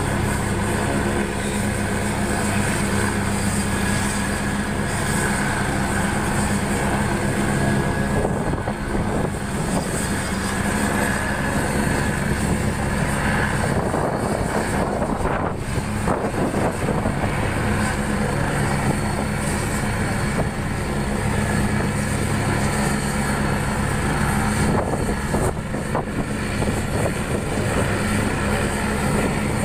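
AgustaWestland AW109 Grand twin-turbine helicopter running on the ground with its rotor turning. It gives a steady turbine whine and rotor noise that holds an even level throughout.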